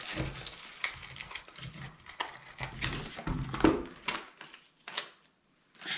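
Paper rustling and crinkling as a folded instruction leaflet and a small cardboard box are handled, with scattered light clicks and knocks and one louder thud about three and a half seconds in.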